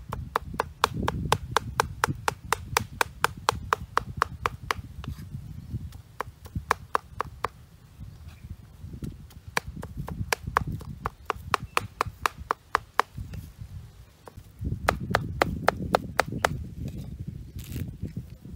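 Cleaver chopping raw pork into mince on a wooden cutting board: quick, even strokes about four a second, stopping for short pauses now and then. A brief rustle near the end.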